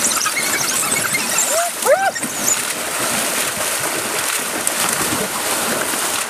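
African wild dogs and spotted hyenas fighting in shallow water: many short, high-pitched squeals and chirps over continuous splashing, with two louder rising-and-falling yelps about two seconds in.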